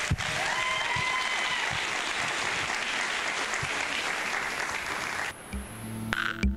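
Audience applauding. About five seconds in, the applause cuts off and electronic music with a steady beat begins.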